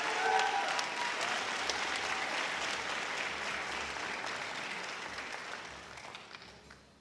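Audience applauding, fading steadily and dying away near the end.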